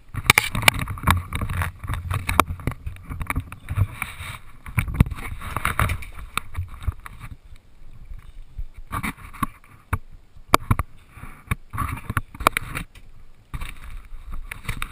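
Handling noise on a body-worn action camera: irregular knocks, thumps and rubbing as the wearer moves about a boat in fins.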